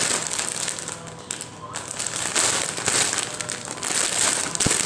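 Clear plastic packaging of a mosquito net crinkling and crackling as it is handled and turned over in the hands.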